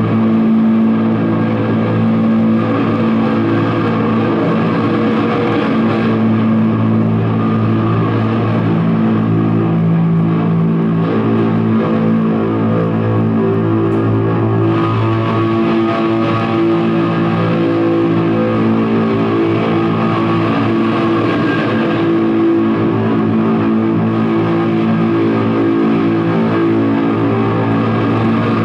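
Live noise music: a loud, unbroken drone of layered sustained tones over a dense hiss, with the high end growing brighter about halfway through.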